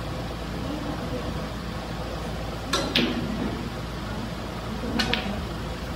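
Snooker balls clicking: two quick pairs of sharp clicks, one just under three seconds in and the other about five seconds in, over a steady room hum.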